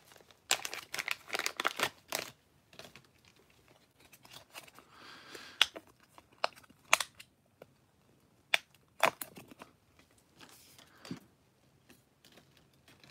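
Clear plastic coin sleeve crinkling and rustling as a silver coin is unwrapped from it by gloved hands, with a dense burst of crinkling about a second in and scattered sharp clicks later.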